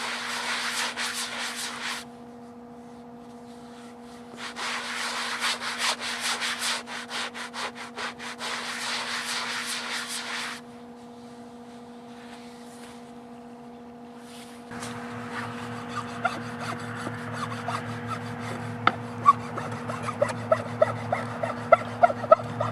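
Hand sanding block rubbing back and forth across the end grain of a wooden chopping block, in two spells of strokes, a short one and then a longer one. From about halfway, a blade is scraped over the wood instead, giving a run of short squeaks that grow louder.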